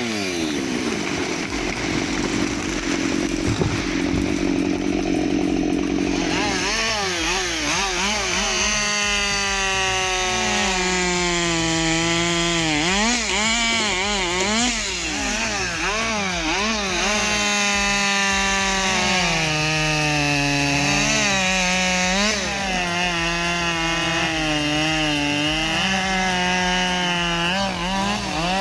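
Chainsaw cutting wood. For the first few seconds it runs steadier and lower; from about six seconds in it runs at high revs, its pitch dipping and recovering again and again as the chain bites into the wood and the engine is loaded.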